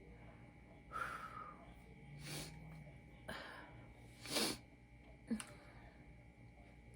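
A person's breathing between burps: several short, noisy breaths or sniffs, the loudest about four and a half seconds in.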